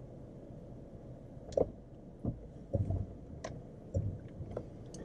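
Irregular knocks and clunks from a Jeep Wrangler JL crawling slowly over rough off-road ground, over a low engine hum; the knocks start about a second and a half in, several in a row.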